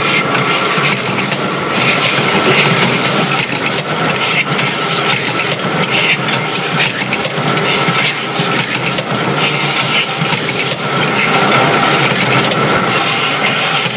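Sea bass gutting machine running, loud and steady: mechanical clatter and motor noise with a constant tone through it.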